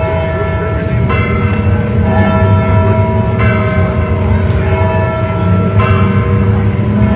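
Church bells ringing: repeated strokes about every second or so, each ringing on into the next, over a steady low rumble.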